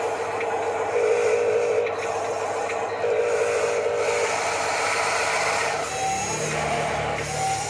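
Electric motors and hydraulic pump of radio-controlled model construction machinery whining over a steady hiss. The pitch wavers twice as the machine works, and a lower hum joins near the end.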